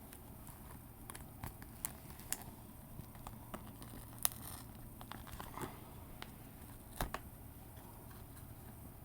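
Plastic packaging of a USB wall charger being worked open by hand: scattered sharp clicks and crackles, loudest about four seconds in and again about seven seconds in.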